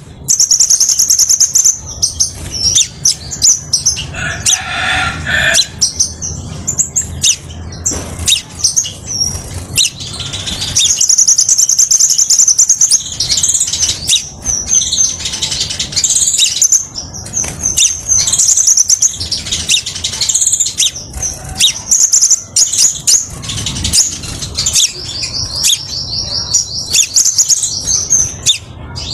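Crimson sunbird (kolibri sepah raja) song: fast, high-pitched twittering trills repeated almost without pause, over a low background rumble.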